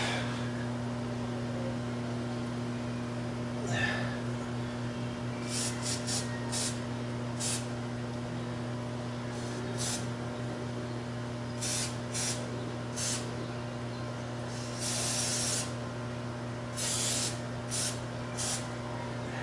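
Seized washing machine motor humming steadily under power without turning: the motor is stalled. Short hissing bursts come and go over the hum, more of them in the second half.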